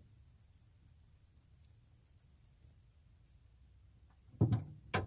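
Removed Hummer H3 water pump with its bearing spun by hand, giving a faint run of fine clicking from the fried bearing, then two louder knocks near the end.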